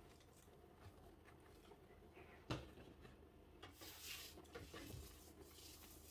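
Keyboard packaging being handled: a single sharp knock about two and a half seconds in, then plastic wrapping rustling and crinkling for a couple of seconds.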